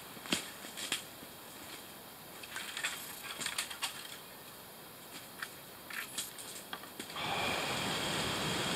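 Footsteps crunching through dry leaf litter and fallen twigs, a scatter of crackles and cracks of snapping dead wood. About seven seconds in, this gives way abruptly to a steady rushing background noise.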